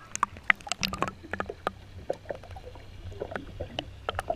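Shallow water lapping and gurgling close by, with irregular small splashes and clicks over a low steady rumble.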